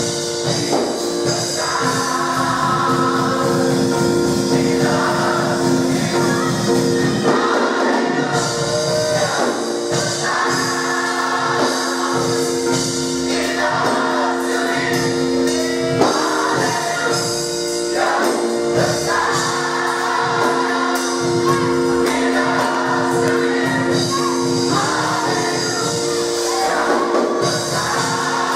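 A gospel mass choir singing over steady held chords.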